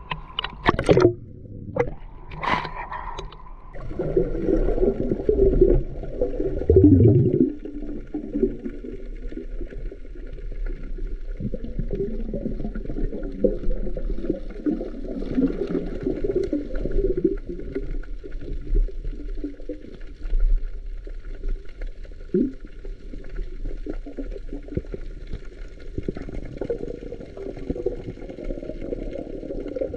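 Water splashing against the camera at the surface, then from about four seconds in a muffled underwater gurgling and swirling, heard with the camera submerged.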